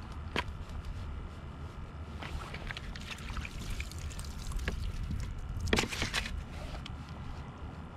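Low rumble of wind on the microphone, with small clicks of gear being handled and a brief clatter about six seconds in as a long-handled tool is pulled from the ice hole and laid down on the ice.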